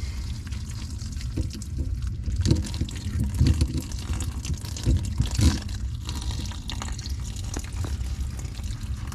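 Water running and dripping from opened plumbing, with scattered sharp knocks and clicks, the loudest about halfway through.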